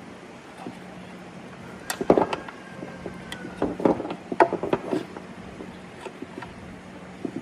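A quick cluster of sharp knocks and clinks starting about two seconds in and lasting some three seconds, over a steady low hum.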